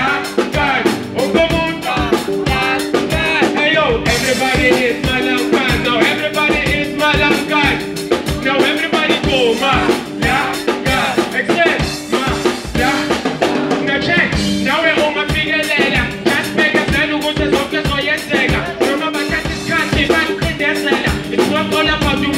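Live band music played through a PA: a drum kit keeping a steady beat, electric guitar and held instrument notes, with a lead vocalist singing over it.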